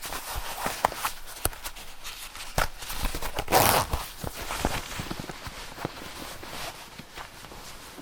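A zipper being worked: scattered clicks and rattles, with one louder zipping rasp about three and a half seconds in.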